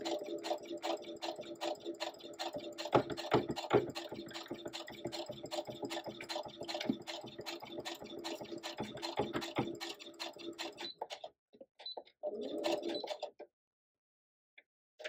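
Electric sewing machine stitching a seam through a pieced quilt block: rapid, even needle clicks over a steady motor hum, with a few louder knocks a few seconds in. The machine stops about eleven seconds in, then runs again briefly for a second or so.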